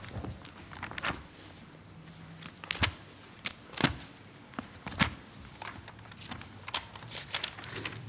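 Bible pages being leafed through close to a lectern microphone: a string of irregular, short paper flicks and rustles, some of them sharp.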